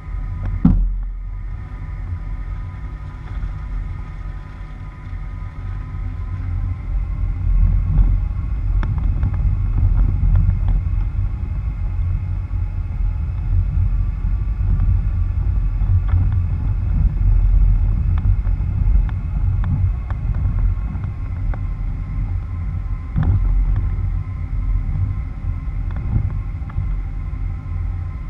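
Low rumble of a vehicle's tyres rolling over a rutted dirt road, picked up close by a camera on the front bumper. Occasional knocks from bumps; the sharpest comes about a second in.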